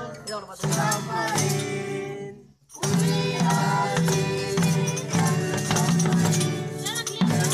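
Group of voices singing along to a strummed acoustic guitar, with shakers and hand drums keeping time. The music breaks off for a moment a little over two seconds in, then starts again.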